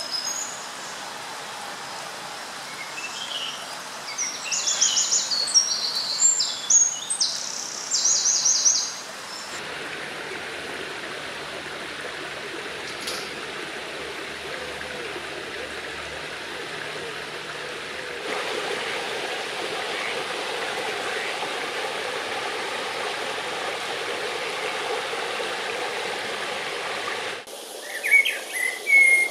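Stream water rushing steadily, with a small songbird singing quick high trills and chirps over it during the first nine seconds and again near the end.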